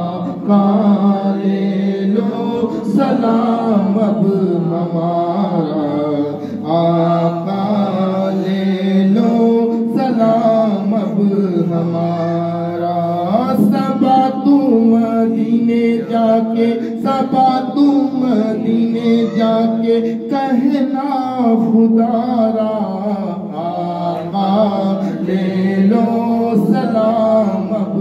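A man singing an Urdu devotional salaam into a handheld microphone, in long, drawn-out melodic phrases with brief pauses for breath.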